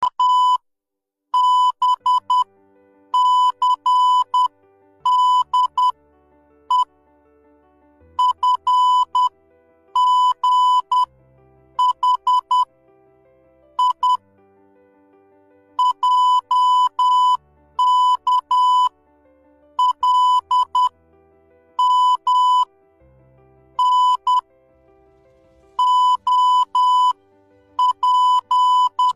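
Morse code beeping on a steady tone of about 1 kHz, keyed in short dots and longer dashes that are grouped into letters with pauses between them. Faint soft background music plays underneath.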